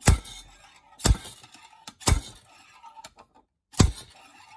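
Harbor Freight slide hammer on a blind bearing puller, its weight hammered back against the stop four times, about a second apart: sharp metallic clacks with a short ring. Each blow jerks a blind bearing out of the aluminium crankcase of a 1978 Yamaha DT175E, and the bearing is starting to come out.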